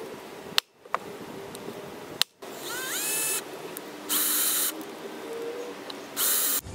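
Cordless drill boring into a broken bolt seized in an outboard motor's bracket, run in short bursts: a rising whine as it spins up about halfway through, then two shorter bursts near the end. The bit is cutting poorly; it needs sharpening.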